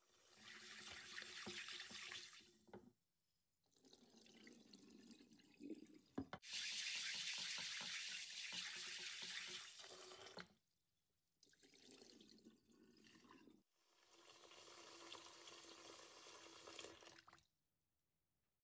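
Kitchen tap running into a glass bowl of red adzuki beans as a hand swishes them to rinse them, in several separate stretches broken by short gaps. The water stops a second or so before the end.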